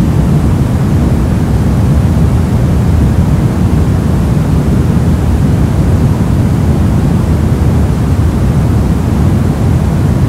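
Steady, unchanging noise with most of its weight low down: a deep, even rush with a fainter hiss above it and no clicks, crackles or tones.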